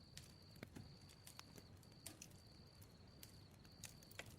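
Faint crackling of a bonfire: irregular sharp pops and snaps, several a second, over a low hiss.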